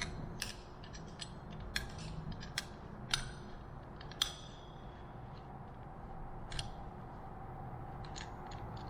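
Small metal parts of an aircraft throttle quadrant clicking and tapping as it is taken apart by hand, its friction lock being removed; one tap about four seconds in rings briefly.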